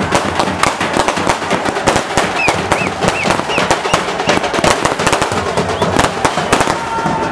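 Firecrackers going off in a dense, rapid crackle of many sharp bangs, set off at the base of the burning effigy.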